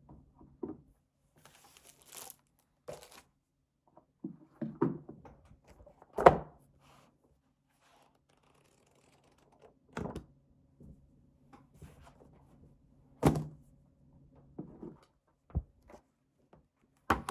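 Paper stationery being handled on a tabletop: plastic wrapping and paper sheets rustling and crinkling, with a series of dull thuds, the loudest about six seconds in and again about thirteen seconds in.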